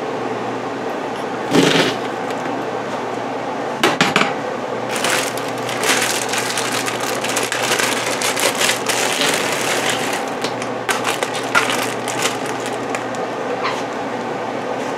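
A bag of frozen cranberries being opened and poured into a measuring cup: many small hard berries clattering, a few separate knocks first, then a dense rattling run from about five to twelve seconds in. A steady low hum runs underneath.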